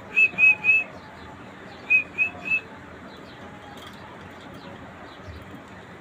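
Whistling: two quick runs of three short, high whistled notes, each note slightly arched. The second run comes about two seconds in and is a little softer.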